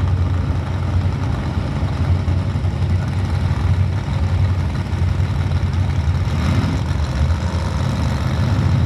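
Two mud-racing trucks' engines idling at the starting line, a steady low engine note, as they wait for the start.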